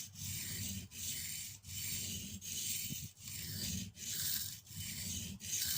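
Steel spokeshave blade being rubbed slowly up and down on a water-soaked sharpening stone: an even scraping stroke about every three-quarters of a second.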